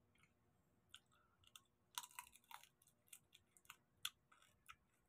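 Whole cooked prawns being peeled and eaten by hand: faint, scattered crackles of shell and chewing, busiest about two seconds in.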